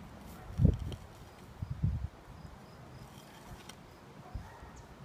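Mattock blade chopping into grass sod and soil: a dull thud just over half a second in, then a few more low thumps around two seconds in.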